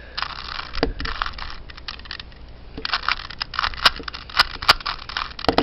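Plastic Rubik's Cube layers being twisted by hand: runs of rough scraping with sharp clicks as the layers snap into place, easing off for about a second in the middle.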